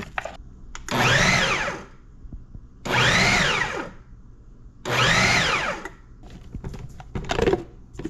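Ninja food processor pulsed three times, each pulse about a second long, its motor whine rising and falling as it chops a fish paste. Near the end come a few clicks and knocks as the plastic lid is handled.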